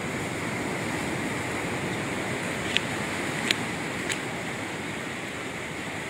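Steady wash of sea surf. Three short sharp clicks come a little before the middle, over about a second and a half.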